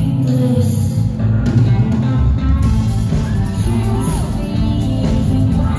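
Loud live band music from the audience floor: drums and a heavy bass low end with keyboard, and a singing voice over it.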